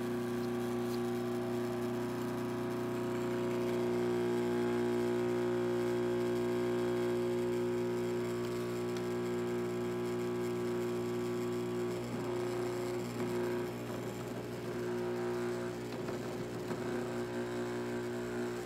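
Dental laboratory model vibrator humming with a steady buzz. From about twelve seconds in, the buzz turns rougher and uneven, with rattling as the impression tray is pressed onto it. It shakes the poured dental stone into the alginate impression to drive out air bubbles.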